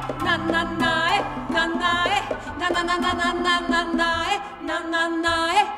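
Live samba band playing: women's voices singing over keyboard, nylon-string guitar and a hand drum, with a steady bass line underneath.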